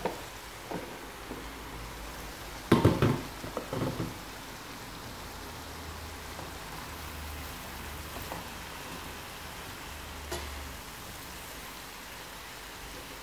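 Steady hiss of vegetables sizzling as they fry in a pan, with a short cluster of loud knocks about three seconds in.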